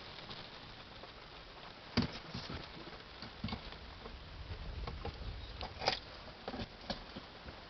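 Scattered raindrops tapping as a thunderstorm's rain starts, a handful of separate hits a second or more apart over a low background hiss.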